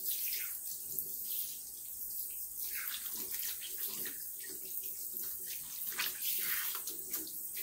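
Water running from a sink faucet as soapy hands are rinsed under the stream: a steady hiss of the flow with irregular splashing as the hands rub and move through the water.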